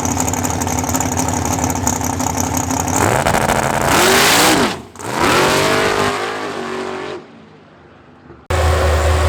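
Big-block Chevy V8 race car engine running steadily, then revving hard and accelerating, its pitch sweeping up and falling back twice before the sound drops away as the car pulls off. Near the end an abrupt cut brings in a loud, steady low engine drone.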